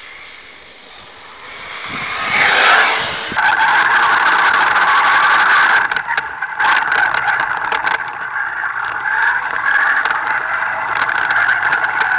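Thunder Tiger RC buggy driving on dirt: its motor grows louder as it approaches, then, heard from a camera mounted on the car, runs at a steady high pitch with scattered clicks and crackles from the rough surface.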